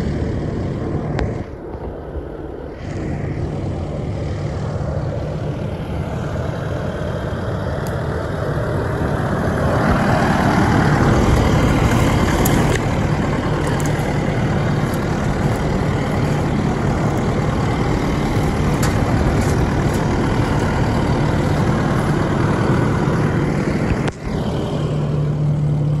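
Diesel engine of a Kubota tracked skid steer running steadily with a low, even hum, swelling louder for a couple of seconds about ten seconds in.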